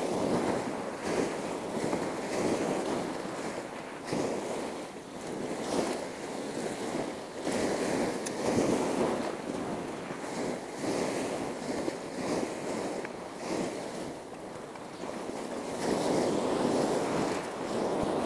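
Waves washing in and wind buffeting the microphone, swelling and easing every second or two.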